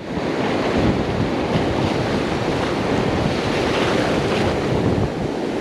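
Ocean surf washing on a beach, with wind buffeting the microphone; a steady rushing noise.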